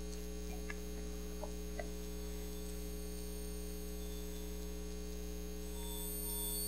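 Steady electrical mains hum, with a few faint ticks in the first two seconds and a faint pulsing tone coming in near the end.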